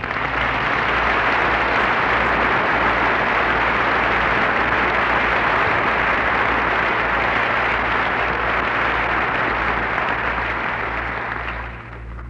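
Audience applauding steadily after a song, dying away near the end, with a steady low hum underneath.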